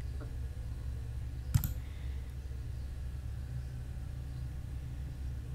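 A single sharp computer mouse click about one and a half seconds in, with a fainter tick shortly after the start, over a steady low hum.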